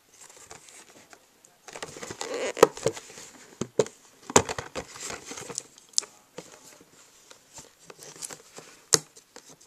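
Hands handling a puzzle's cardboard packaging: irregular rustling and scraping with sharp clicks and taps, starting about a second and a half in.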